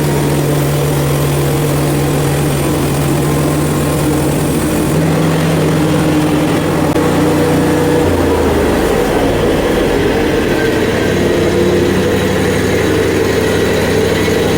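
Portable bandsaw mill's engine running steadily under load while the band blade saws through a red oak log; its pitch drops about eight seconds in.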